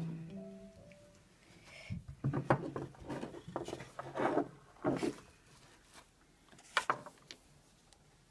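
Small objects being handled and set down on a wooden desk: a run of knocks and clatter lasting about three seconds, then a single sharp click near the end.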